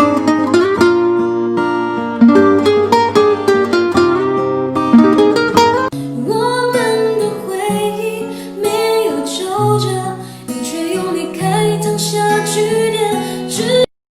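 Background music: quick plucked notes for about six seconds, then a singing voice over the accompaniment, cutting off abruptly near the end.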